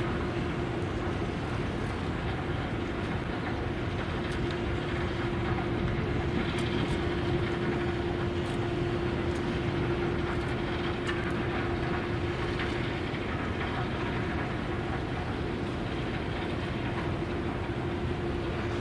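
Steady mechanical rumble with a constant low hum, from industrial machinery running nearby.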